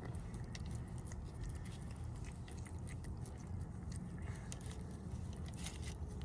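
Stray kitten eating canned cat food, a run of quick, irregular chewing clicks over a low steady rumble.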